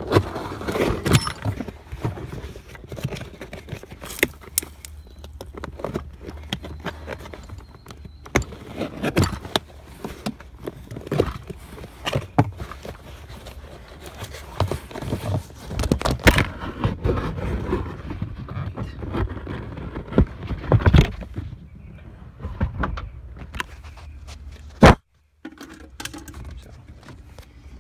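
Handling noises of hands working on car interior parts: scattered clicks, knocks and rustles of trim, carpet and fasteners being moved, over a steady low hum. A sharp click about 25 seconds in is followed by a moment of dead silence.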